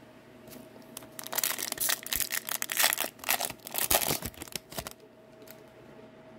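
Foil wrapper of an Upper Deck Series 2 hockey card pack being torn open and crinkled: a run of crackling and sharp clicks starting about a second in and stopping near the five-second mark.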